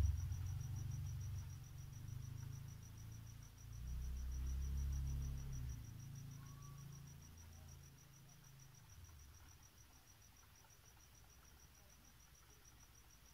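A cricket chirping steadily in quick, even high pulses. Under it a low rumble dies away about two-thirds of the way through.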